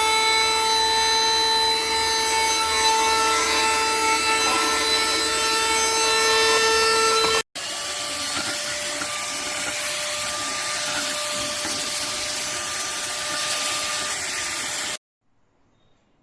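Xiaomi Mijia cordless stick vacuum cleaner's motor running with a steady whine over a rushing noise. After about seven and a half seconds it cuts out and starts again at once, a little quieter and at a different pitch, then stops abruptly near the end.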